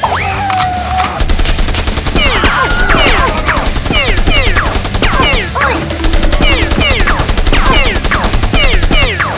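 Sound-effect machine-gun fire in two long rapid bursts: the first starts about a second in, and the second follows a short break past the middle. Short falling whistles run over the shots.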